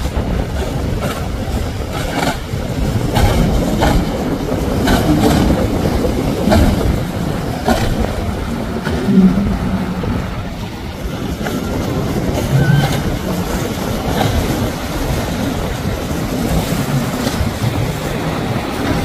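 Outboard-powered speedboats running fast through choppy inlet water: a steady engine drone mixed with the rush of water and wind, broken by irregular sharp slaps.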